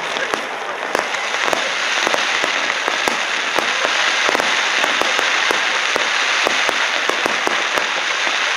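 Aerial firework shells bursting one after another, with dense crackling and many sharp pops.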